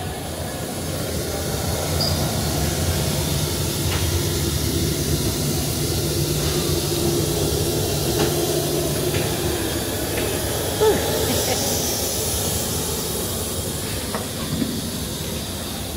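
Steady rushing hiss of air with a low hum at an airliner's boarding door, typical of the aircraft's air-conditioning and ground air supply running during boarding. The hum fades out about halfway through, and there is a short knock near the end.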